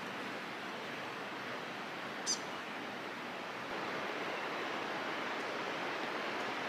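Steady outdoor rushing hiss of the forest air, with one short high bird chirp about two seconds in. The hiss grows slightly louder just before four seconds in.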